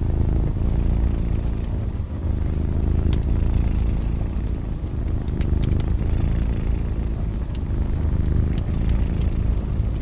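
Domestic cat purring steadily, a close low rumble, with the scattered pops and crackles of a wood fire in a fireplace.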